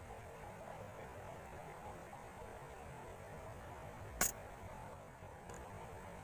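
Faint steady background hiss and hum, broken about four seconds in by one sharp click, with a much fainter click a second later.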